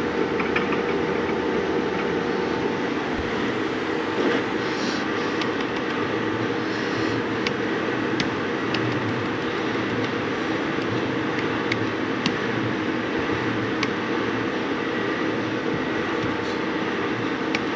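Steady mechanical hum of running CNC lathe and machine-shop machinery, with several sharp light clicks scattered through.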